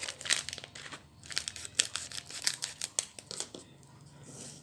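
Foil-lined drink sachets crinkling and crackling as they are handled, a quick irregular run of sharp rustles.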